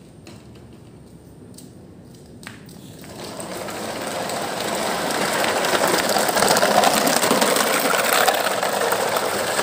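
Toy trucks rolling over a rough surface: a few light clicks, then from about three seconds in a dense rattling of plastic wheels that grows steadily louder.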